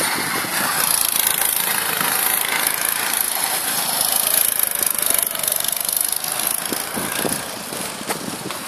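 Go-kart engines running as karts drive through a corner.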